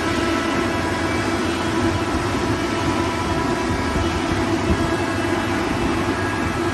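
ALUP SCK 21-08 15 kW rotary screw air compressor running steadily, a constant hum with a few steady whining tones above it, as it pumps air into a connected receiver to build pressure toward 8 bar.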